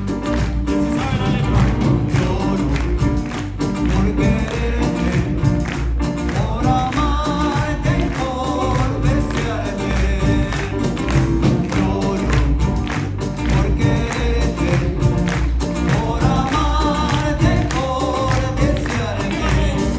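Live Peruvian music: voices singing over a steady percussion beat.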